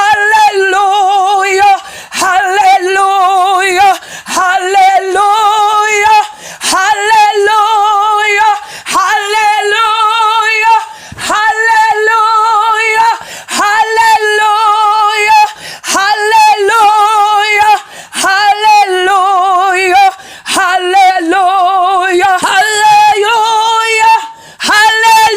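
A woman singing a praise song unaccompanied, holding long notes with a strong, wavering vibrato in phrases of about two seconds, each separated by a short breath.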